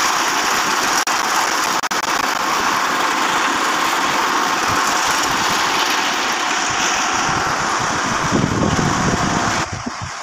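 Plasser Unimat Split Head tamping machine's engine running steadily at standstill, a loud even mechanical hiss without a clear pitch. Near the end it drops off suddenly and leaves an uneven low fluttering rumble.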